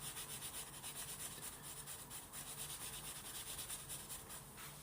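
Hands rubbing and massaging skin in quick, even, repeated strokes: a faint, rhythmic friction sound.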